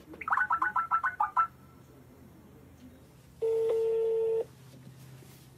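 A Skype call being placed from a laptop: a quick run of about eight short dialing beeps, then after a pause one steady ringing tone about a second long while the call rings through.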